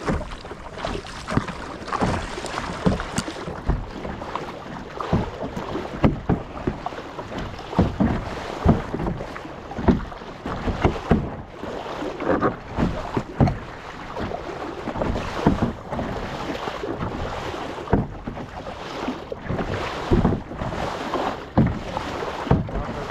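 Kayak paddles dipping and splashing in sea water in irregular strokes about once a second, with water slapping and wind on the microphone.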